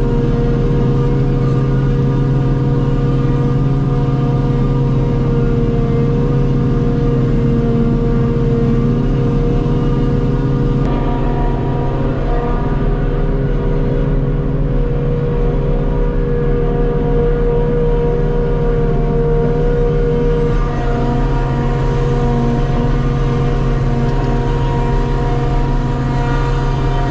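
Forage harvester running steadily while chopping grass silage: a loud, constant engine drone with many steady tones, its pitch shifting slightly about 11 and 21 seconds in.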